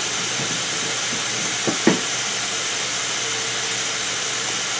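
Kitchen faucet running steadily into a stainless steel sink, with two brief knocks a little under two seconds in.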